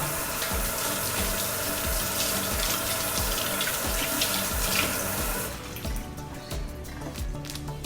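Kitchen sink tap running while hands are washed under it, shutting off about five and a half seconds in. Background music with a steady beat plays underneath.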